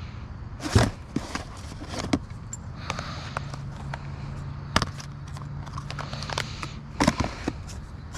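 Items being handled in a curbside trash pile: sharp knocks and clatter, the loudest about a second in, with more around two, five and seven seconds. A steady low hum runs underneath.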